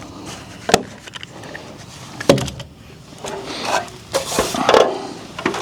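Two sharp knocks, the second the louder, followed by a stretch of scraping and rustling handling noise.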